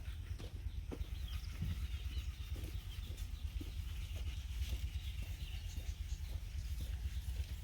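Outdoor rural ambience: a steady low rumble with faint bird calls and scattered light clicks.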